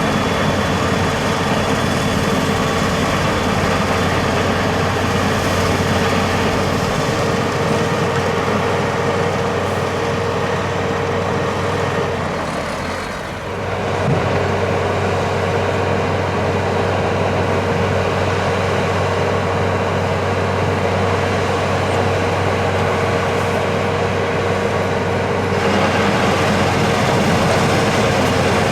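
Heavy vehicle engine, likely a snow-clearing truck's, running steadily with a low hum. It dips briefly near the middle and runs a little louder near the end.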